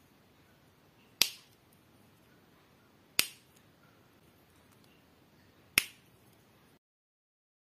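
Three sharp plastic clicks of LEGO bricks being snapped together by hand, about a second, three seconds and nearly six seconds in, over faint room hiss.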